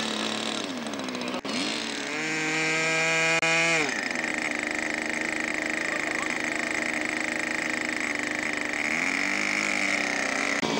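Small model-airplane engine buzzing, its pitch rising and falling as it is throttled, then holding a steady high note; the sound changes abruptly a few times in the first four seconds.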